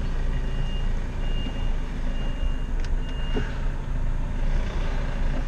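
A truck's reversing alarm beeps about once a second over the steady running of its diesel engine while the truck backs up; the beeping stops about three seconds in, followed by a faint knock.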